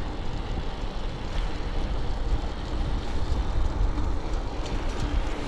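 Wind buffeting the microphone: a steady, rough rumble with no distinct events.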